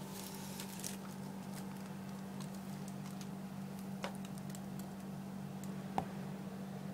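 Scattered light clicks and taps from a Shetland sheepdog puppy shifting about and tugging a towel in a wire crate, over a steady low hum; the sharpest tap comes about six seconds in.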